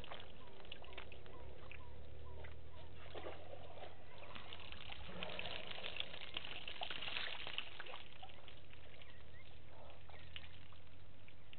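African elephant drinking at a waterhole: water trickling and splashing as its trunk draws water and squirts it into its mouth, in short irregular splashes.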